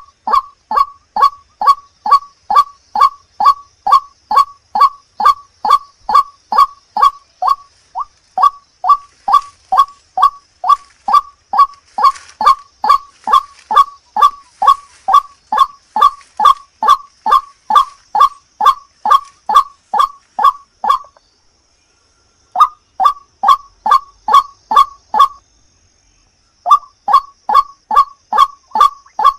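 White-breasted waterhen (ruak-ruak) calling in a fast, even series of short harsh notes, about two and a half a second, broken by two short pauses in the last third. This is a lure call used to draw the bird in.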